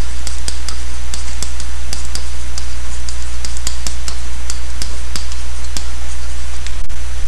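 Loud, steady low electrical hum on the recording, with light, sharp clicks about three a second: a pen stylus tapping and stroking on a tablet while handwriting numbers.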